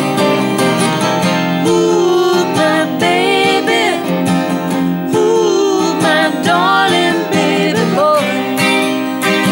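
Folk-pop music without lyrics: strummed acoustic guitar, with a wavering, gliding lead melody over it from about two seconds in until near the end.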